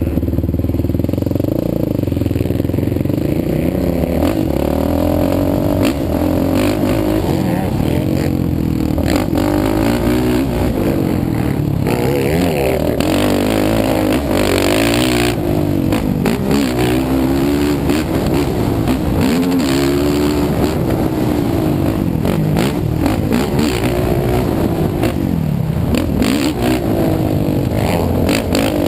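Sport quad's engine at race pace, revving up and falling back over and over as the throttle is worked through corners and jumps and the gears change, with clattering jolts over the bumps.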